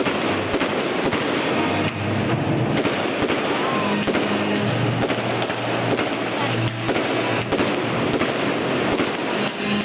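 Aerial fireworks bursting overhead: a dense, continuous run of bangs, pops and crackles, with music playing underneath.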